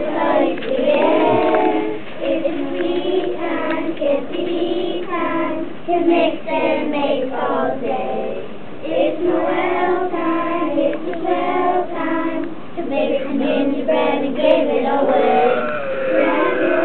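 A group of young children singing together, a class choir with held notes and changing pitch.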